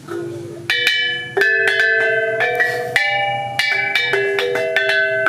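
Kulintang, a row of small bossed gongs, struck with beaters in an unpracticed run of single notes at different pitches, a few strikes a second. Each note rings on after it is struck.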